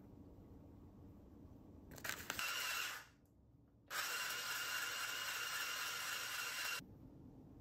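Handheld electric shaved-ice maker running in two bursts, about a second and then about three seconds, shaving ice into a bowl: a steady motor tone under the hiss of ice being shaved.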